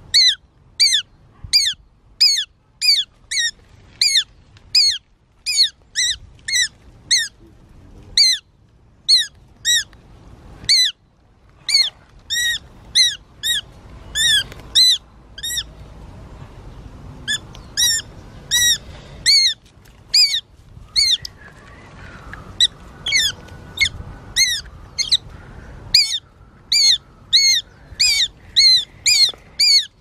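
A young shikra giving loud, high, repeated squawking calls, about two a second with a few short pauses, while it guards its kill.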